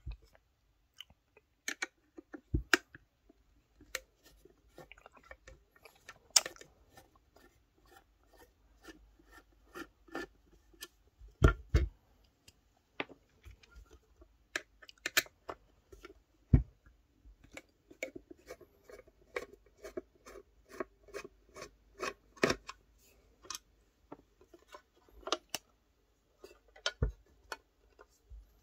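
Screwdriver turning out the Phillips screws of a Pro Co Rat pedal's metal enclosure: an uneven run of sharp clicks and scraping as the screws turn, with a few louder knocks from the box being handled.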